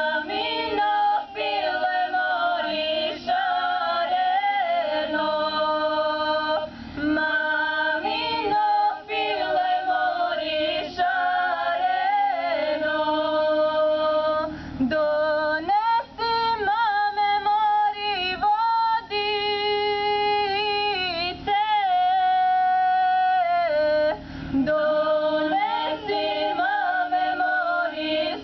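Women's vocal group singing without instruments, in phrases of long held, wavering notes with short breaks for breath.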